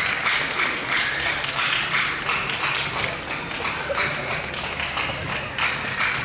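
Audience clapping, a run of many quick separate claps.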